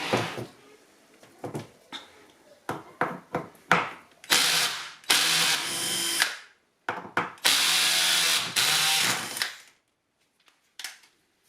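Cordless power drill/driver running in two bursts of about two seconds each, with a steady motor whine, after a few sharp clicks. It is backing screws out of an automatic transmission valve body to free the solenoids.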